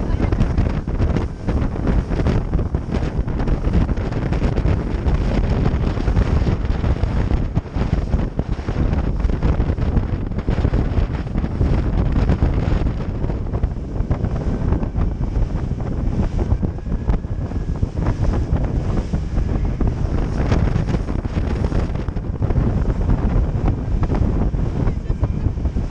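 Heavy wind buffeting on the microphone of a camera aboard a fast open motorboat, over the rush of water and spray thrown off the hull.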